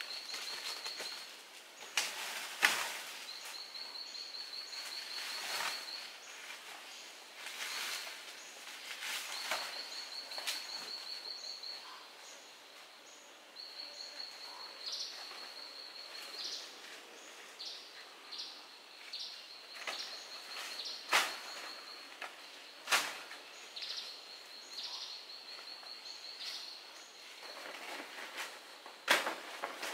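Tropical forest ambience: a high, rapidly pulsing trill repeats in runs of a second or two every few seconds. Rustling in the leaf litter comes in the first half, and there are a few sharp snaps later on.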